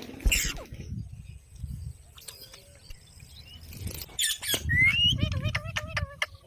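Pet parrot: a harsh squawk right at the start, then soft clicks and scratchy taps, and a short rising whistle about five seconds in.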